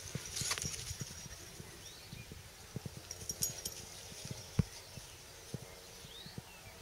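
Labrador puppies moving about: scattered light knocks with a few faint, short, high squeaks.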